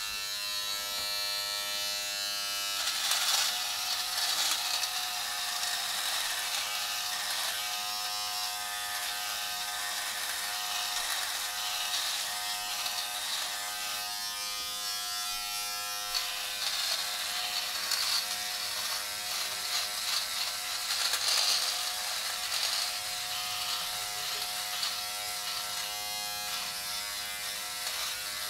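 A Philips Norelco Multigroom 7000 electric trimmer with its face trimmer head runs with a steady hum. From about three seconds in it is cutting facial stubble, which adds a scratchy cutting noise over the motor.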